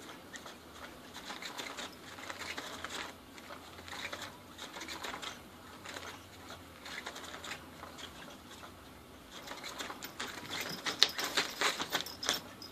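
Cat's Meow electronic cat toy running: its hidden wand scratches and rustles about under the fabric cover in uneven bursts. A louder run of rustles and taps comes near the end as a cat pounces onto the cover.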